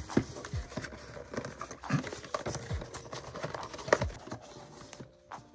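A paper sleeve rustling and scraping as it is slid off a cardboard mailer box, with light taps and knocks as the box is handled; the loudest knock comes about four seconds in.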